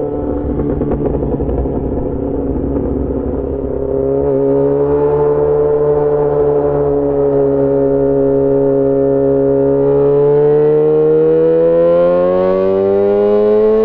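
Yamaha XJ6 S inline-four motorcycle engine through an SC-Project exhaust, ridden under way. It runs rough and uneven for the first few seconds, then settles into a smooth steady note that dips a little and climbs steadily in pitch over the last few seconds as the bike accelerates.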